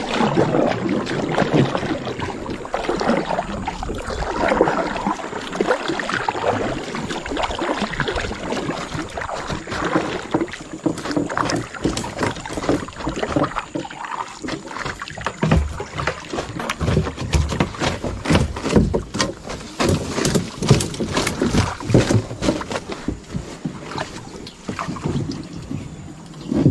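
Kayak being paddled on a river: uneven swishes and splashes of paddle strokes in the water, with a run of sharp clicks and knocks through the middle stretch.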